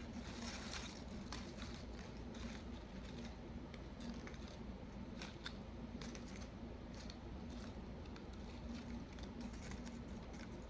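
Faint, irregular small clicks and crackles of food being handled and eaten close to the microphone, over a low steady hum.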